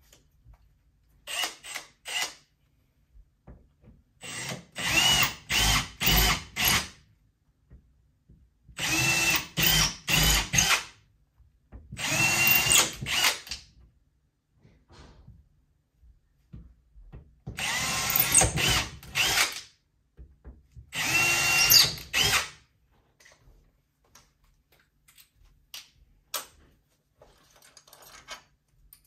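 Power drill run in short trigger bursts, several quick pulses at a time in about six groups. The motor's whine climbs in pitch at the start of each pulse.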